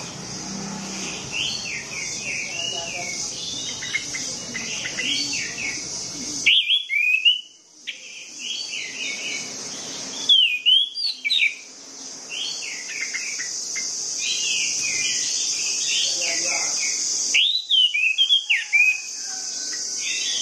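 Orange-headed thrush singing, a continuous run of short, varied whistled and chattering phrases. A steady high hiss runs behind the song and drops out abruptly twice.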